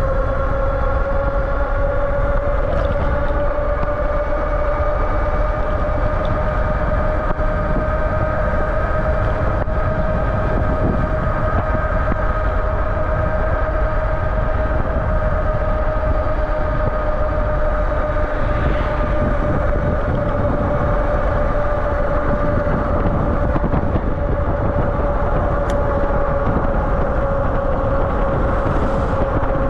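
Aniioki A8 Pro Max e-bike's electric hub motor whining under full throttle at about 30–38 mph. It is one steady high whine that climbs slightly in pitch as speed builds and eases back near the end, over low wind rush on the microphone.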